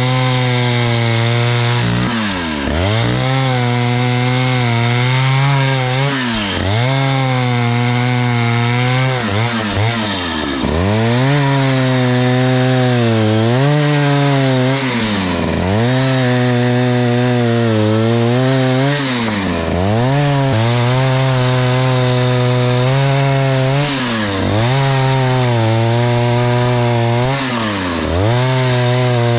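Vintage Stihl 051 two-stroke chainsaw of about 89 cc running at high revs, cutting birch. Its engine note dips sharply and climbs back every two to three seconds.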